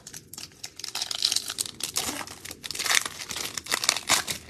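Foil wrapper of an Upper Deck Series One hockey card pack crinkling and tearing as it is pulled from the box and ripped open by hand, a dense crackle of sharp rustles throughout.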